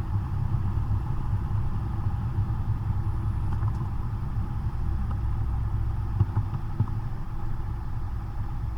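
Cessna 172's four-cylinder piston engine and propeller running steadily at an even, low power, heard inside the cockpit as a constant low drone.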